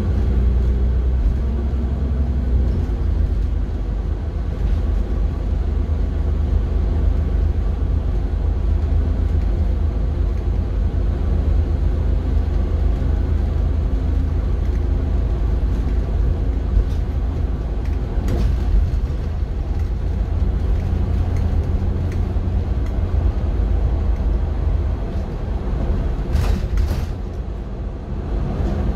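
City bus running along the road, heard from inside: a steady low rumble of engine and tyres. Brief hisses come about two-thirds of the way through and twice near the end.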